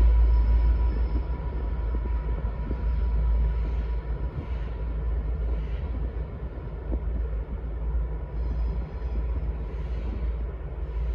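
V/Line N-class diesel-electric locomotive running light engine, its diesel giving a deep steady rumble. It is loudest at the start and eases off over the first few seconds as the locomotive moves away.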